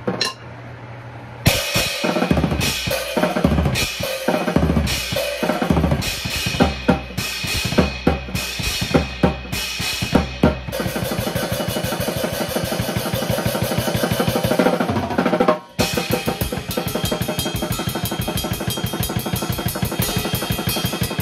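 Drum kit being played, with kick drum, snare and cymbal hits, starting about a second and a half in. After a brief break near three-quarters of the way through, it settles into a fast, even run of strokes.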